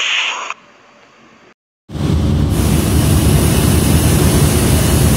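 The tail of an intro sound effect fades out, there is a moment of silence, and then about two seconds in the steady, loud rumble and rushing hiss of a fishing trawler's deck cuts in: the ship's engine and deck machinery while the trawl net is hauled aboard.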